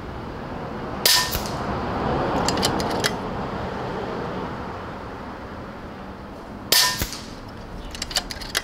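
Two shots from an Airgun Technology Vulcan 3 5.5 mm PCP bullpup air rifle, about five and a half seconds apart. Each shot is a sharp crack followed a second or two later by a few quieter clicks.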